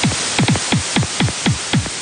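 Electronic music received over shortwave AM radio: a rapid run of synth drum hits, each a steep falling pitch sweep, about six a second, over steady static hiss.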